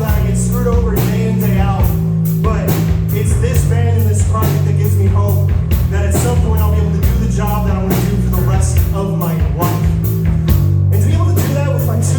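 Live rock band playing, with a steady drum-kit beat, bass notes underneath and a wavering electric guitar or vocal melody on top.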